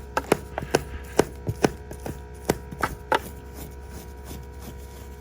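A hand scraper tool working slime out of carpet pile: irregular sharp taps and clicks, about eight in the first three seconds, then stopping. A steady hum with a fixed tone runs underneath.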